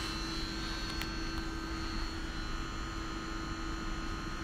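Steady cabin hum inside an electric passenger train carriage: a low rumble with a constant whine of several steady tones, and one faint click about a second in.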